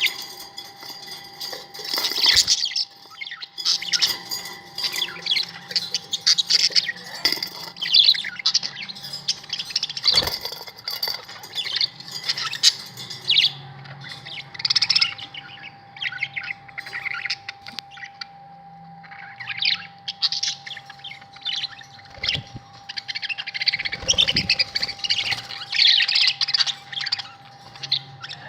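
Budgerigars chattering, a busy, irregular stream of short chirps and warbles with brief lulls, over a steady faint hum. A few knocks are heard.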